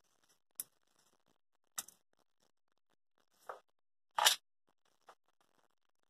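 Scattered light clicks and knocks of hands working a dismantled steam iron's plastic housing and tools on a workbench, about five in all, the loudest a little past four seconds in.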